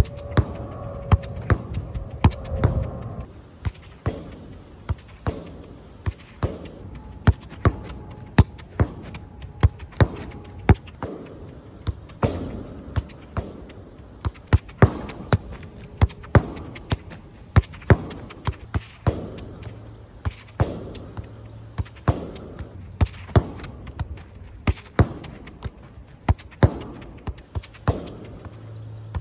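Football repeatedly kicked against a low wall and rebounding across artificial turf, a steady run of sharp thuds about one or two a second, from one-touch passing drills.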